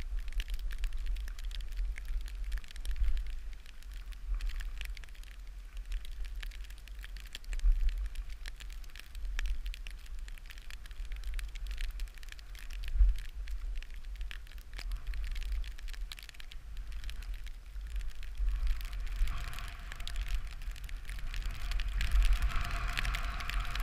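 Skis sliding and carving over snow, a steady crackling hiss from the edges, with low wind rumble buffeting the camera microphone.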